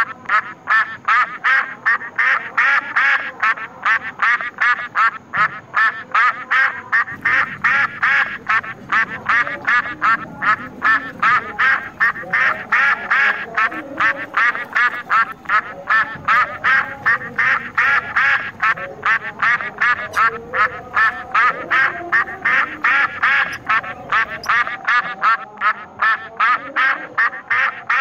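Duck quacking over and over in a steady, evenly spaced run of about two to three quacks a second.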